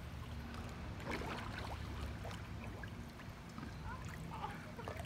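Swimming-pool water lapping and trickling softly in small waves over a steady low rumble.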